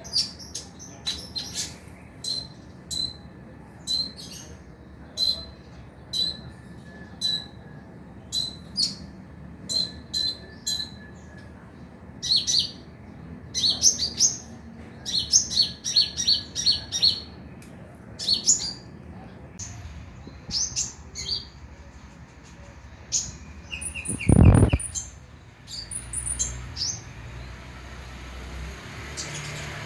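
Kolibri ninja (a sunbird) chirping: short high-pitched chips about once a second, then quicker clusters of rapid twittering. One louder, lower sound breaks in about three-quarters of the way through.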